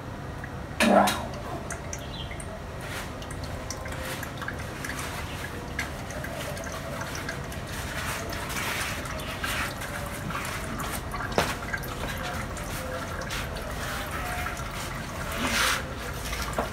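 Used engine oil trickling and dripping from the car's underside into a plastic drain pan as the old oil drains out, with a short louder sound about a second in.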